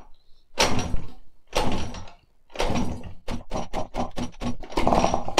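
Peugeot 103 moped's two-stroke single-cylinder engine being pedal-started with no choke: it turns over in a series of strokes that come quicker in the second half, but does not catch.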